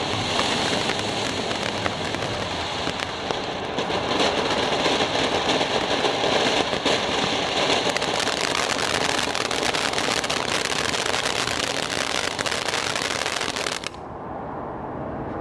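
Kin Gin Duet ground fountain firework spraying gold and silver sparks: a steady hissing rush flecked with small crackles. It drops abruptly to a weaker hiss about fourteen seconds in as the fountain dies down.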